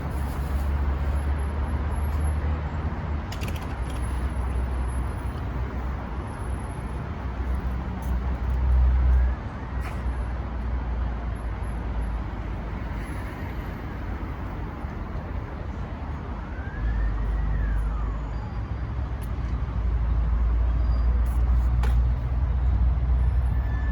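Road traffic on a busy street: a steady hum of passing cars with a heavy low rumble that swells and eases several times, and a few faint rising-and-falling tones partway through.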